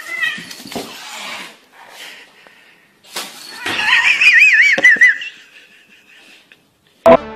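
A cat and a puppy scuffling on a tiled floor, with scrabbling noise in the first second or so. About three seconds in comes a loud, high, wavering squeal lasting a couple of seconds. A sharp click comes near the end.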